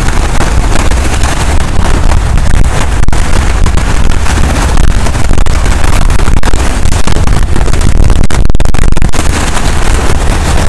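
Strong wind buffeting the microphone with a loud, continuous low rumble, mixed with waves breaking and washing over the rocks.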